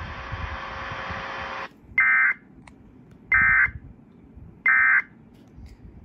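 EAS end-of-message (EOM) data tones: three short, identical electronic bursts about 1.3 seconds apart, played through a laptop speaker. A steady hiss of the broadcast cuts off just before them. The bursts mark the close of the relayed tornado warning.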